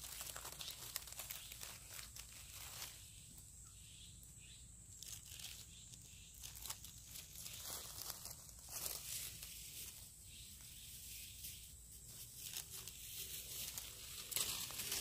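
Faint, intermittent rustling and crinkling with scattered crackles, the sound of handling while wild mushrooms are picked and bagged.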